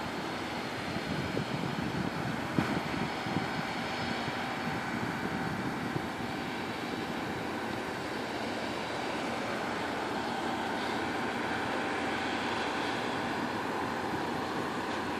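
New Holland TX34 combine harvester running steadily while harvesting, heard from a distance as an even drone of engine and threshing machinery.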